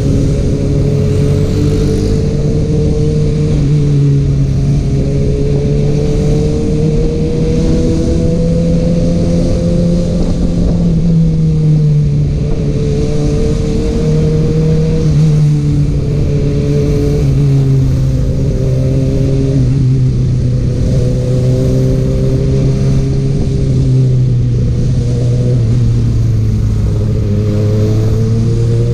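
Kawasaki Ninja ZX-6R's inline-four engine through an Akrapovic exhaust, running steadily while riding, its pitch rising and falling gently with the throttle. Heavy wind rush on the microphone.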